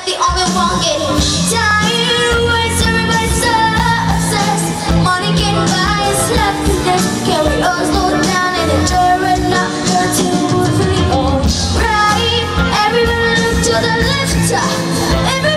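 Pop-rock band music with a female voice singing the lead, steady beat and bass underneath.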